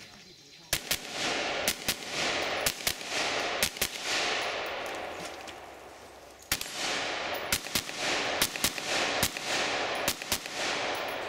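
AR-style rifle firing two strings of rapid shots, about ten in the first and a dozen or more in the second, with a pause of about two and a half seconds between them. Each shot trails into a long echo.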